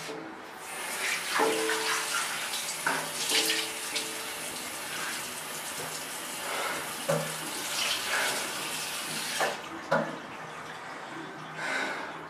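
Bathroom sink tap running steadily, with splashes from hands scooping water to the face. The flow stops about nine and a half seconds in.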